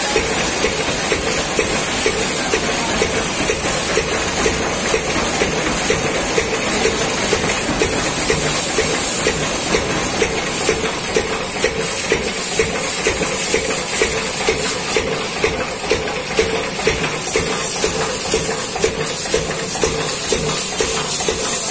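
High-pressure washer jet hissing steadily as it blasts mud off a combine harvester, over the steady hum of the washer's pump.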